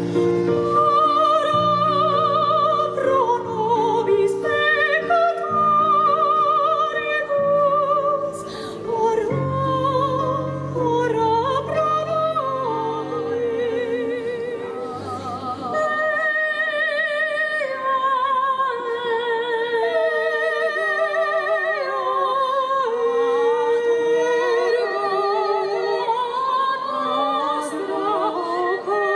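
Operatic singing with strong vibrato, sustained low accompaniment notes underneath for about the first half, then the voices carry on without them.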